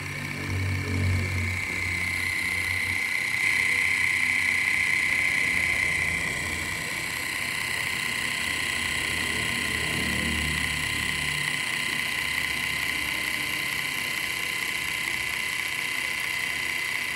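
Small electric motor spinning the flywheels of a cardboard model diesel engine, a steady high-pitched whine that rises slightly about two seconds in. A low rumble comes and goes briefly at the start and again around ten seconds in.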